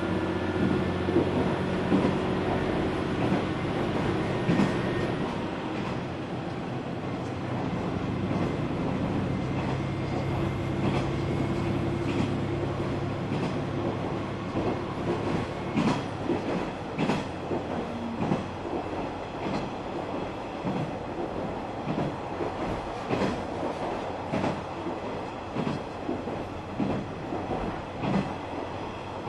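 Onboard running sound of a KiHa 120 diesel railcar. The diesel engine's steady hum is clear for the first few seconds and then sinks into the running rumble. From about halfway through, the wheels click over rail joints in a clickety-clack.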